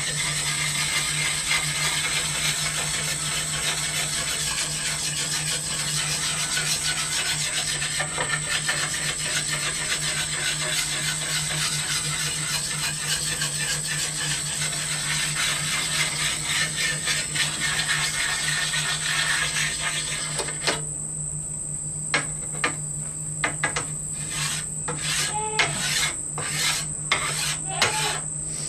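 Oiled sharpening stone rubbed in small circles along the edge of a steel wakizashi blade, a steady scraping that stops about 20 seconds in. Then a string of about ten light clicks and taps.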